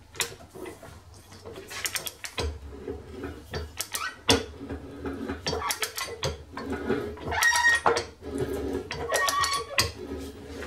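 Keyway broach being pushed through a pulley bore on a hand arbor press with a ratchet handle: irregular metallic clicks and clinks as the handle ratchets and the broach teeth cut, with a few short ringing tones in the second half.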